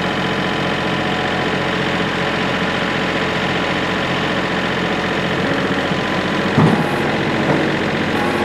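Kubota L3902's three-cylinder diesel engine idling steadily, with a short thump about six and a half seconds in.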